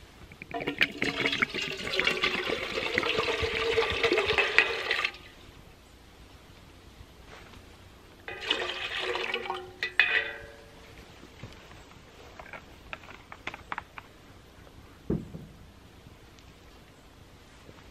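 Water poured from a bottle into a metal pot on a small wood-burning camp stove, in two pours: a long one of about four seconds, then a shorter one of about two seconds around eight seconds in. A single soft knock follows about fifteen seconds in.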